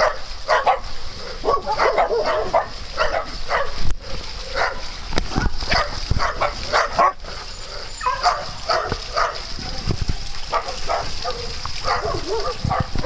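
Several dogs barking at play, short barks coming in quick, irregular runs, over a steady high hiss.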